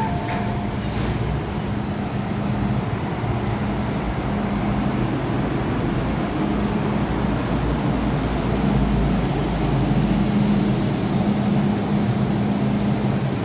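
MTR M-Train electric multiple unit pulling out of an underground station: a steady traction-motor hum over wheel and track rumble, the low rumble growing stronger midway as the train gathers speed. A short two-note electronic tone sounds at the very start.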